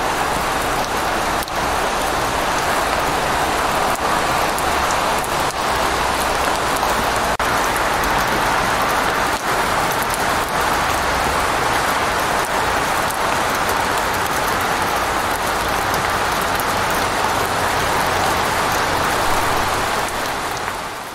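Steady hiss of heavy rain and tyres on a wet road, heard from inside a moving vehicle, over a low road-and-engine rumble. It fades out at the very end.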